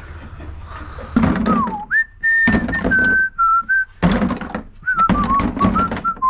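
A person whistling a tune in clear single notes that step and slide between pitches, broken up by loud bouts of knocking and rustling noise.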